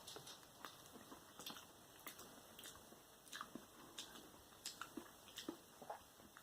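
Faint chewing of a chewy candy strip: soft, irregular wet mouth clicks and smacks.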